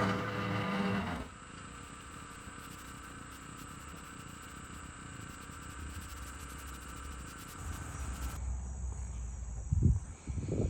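A small engine running cuts off abruptly about a second in. Crickets then chirp steadily, with a few low thumps near the end.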